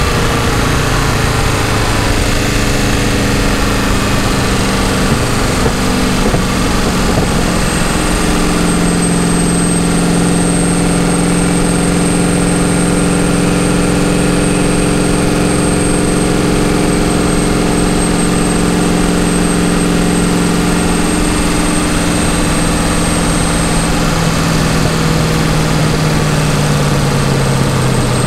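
Turbocharged Nissan 300ZX (Z31) engine running as the car cruises, heard from a camera mounted outside the car under heavy wind and road noise. The engine note changes about six seconds in, holds steady for most of the stretch, then drops in pitch near the end as the car slows. A thin high whistle runs through most of it and stops a few seconds before the end.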